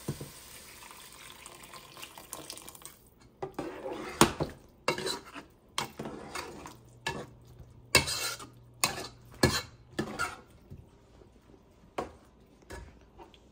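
Vegetable stock poured from a steel saucepan into a pot of hot sautéed vegetables, a soft hiss for the first few seconds. Then a metal spoon stirring the vegetables, clanking and scraping against the pot, irregularly and often.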